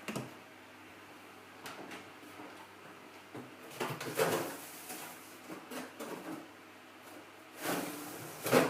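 A series of knocks, clunks and scrapes from things being handled, like a drawer or door being opened and closed, with a faint steady hum beneath; the loudest clunks come near the end.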